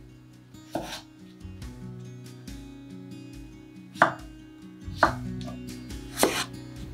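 Kitchen knife cutting through peeled raw potato and knocking on a wooden cutting board: four separate cuts, the last one doubled, spaced unevenly. Soft background music runs underneath.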